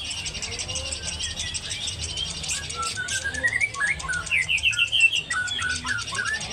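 Caged songbird singing a quick series of varied chirps and whistled notes, with a rapid rising run of notes about three to four seconds in. Behind it runs a fast, even, high-pitched ticking.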